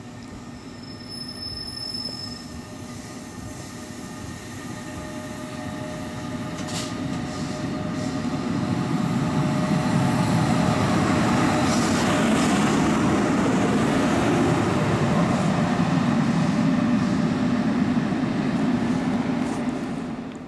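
Train approaching and running past, growing louder over the first half and then staying loud, a steady whine riding over the rumble of the wheels on the rails. The sound cuts off suddenly at the end.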